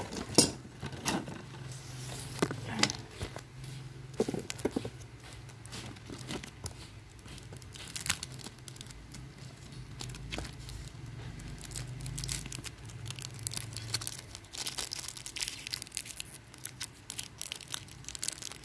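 Plastic mooncake wrapper being torn open and crinkled by hand: irregular sharp crackles throughout, coming thicker in the last few seconds.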